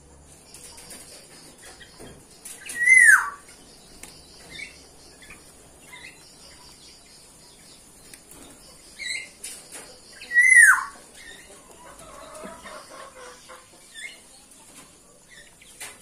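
Two loud bird calls, each a single short note sliding down in pitch, about seven seconds apart, with a few faint short chirps between them.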